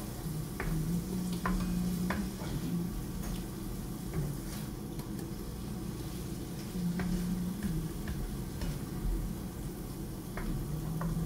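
Sofrito, ham and tomato sauce sizzling in a pot over high heat, under a low steady hum. A spoon clicks and scrapes against the tomato-sauce can and the pot every second or so as the sauce is emptied out and stirred in.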